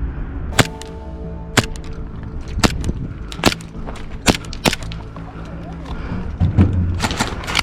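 Airsoft guns firing, sharp single cracks roughly once a second, then a quick cluster of shots near the end.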